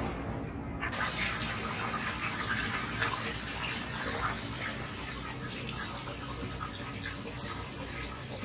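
Water running steadily into a stone outdoor hot-spring bath: an even rushing splash that begins suddenly about a second in.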